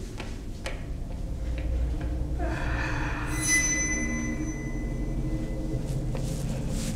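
Suspense underscore from a thriller drama: a steady low rumbling drone with a few faint clicks. About two and a half seconds in, a high metallic ringing shimmer swells up, peaks a second later, then fades away.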